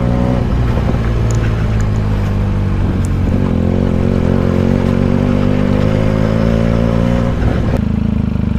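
Benelli TNT 300 parallel-twin engine running under way, heard from the bike itself. Its pitch holds steady, climbs slowly through the middle, then drops suddenly near the end and settles.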